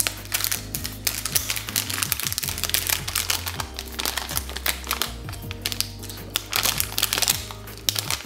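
Metallised anti-static bag crinkling and tearing as it is pulled open by hand, a dense run of irregular crackles, over steady background music.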